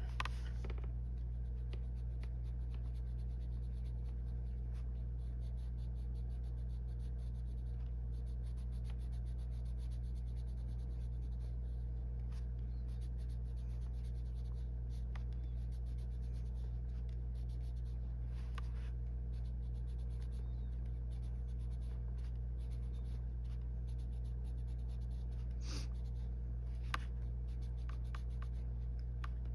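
Arteza coloured pencil scratching on paper in short, repeated shading strokes, over a steady low hum. There are a few sharper ticks of the pencil, one right at the start and a couple near the end.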